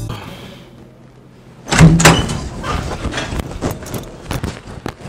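A wooden door bangs open about two seconds in, followed by a run of sharp knocks and clicks.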